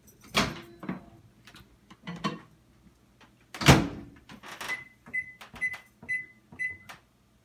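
An over-the-range microwave oven being opened and loaded, its door then shut with a loud clunk a little past halfway. Then a quick run of short keypad beeps, about two a second, as the cook time is entered.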